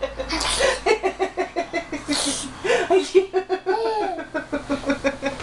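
A person laughing hard in rapid, repeated "ha-ha" pulses, with two short breathy bursts about half a second and two seconds in.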